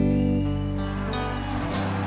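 Electric guitar played straight through an EQ pedal, a held chord ringing out with some of its notes changing as it sustains.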